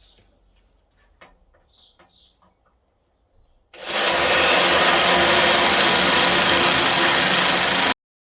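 A few faint taps and clicks, then about four seconds in a power tool starts and runs steadily at full speed on sheet metal, cutting off suddenly just before the end.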